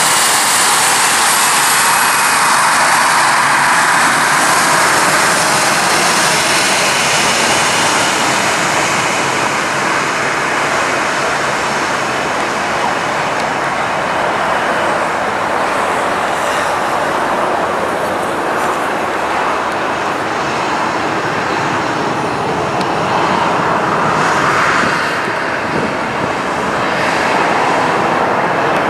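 Boeing 737's CFM56 turbofan engines running at low taxi power: a steady jet rush with a high hiss, easing a little as the airliner moves away.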